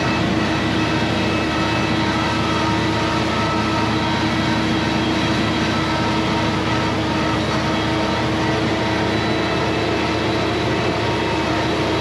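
Tractor engine and PTO-driven disc mower running steadily at work, heard from inside the cab: an even machine drone with a prominent constant hum.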